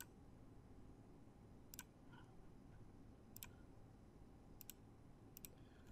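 Faint computer mouse clicks over low room hiss: single clicks about every second and a half, then two quick pairs of clicks near the end.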